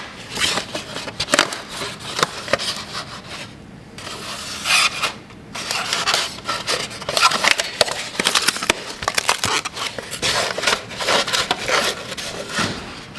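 Cardboard being bent, crumpled and scraped as it is worked into place: a run of uneven crackles and scrapes.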